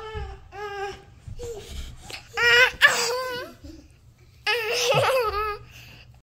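A young girl laughing and squealing in high-pitched, wavering bursts, loudest about two and a half seconds in and again around five seconds in.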